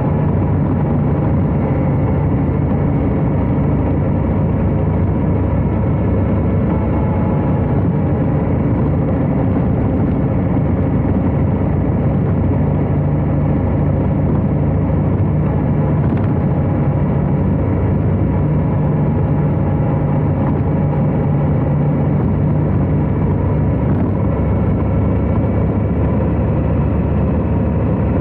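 Harley-Davidson Heritage Classic FLHC's V-twin engine running steadily while the motorcycle is ridden, its pitch holding nearly even throughout.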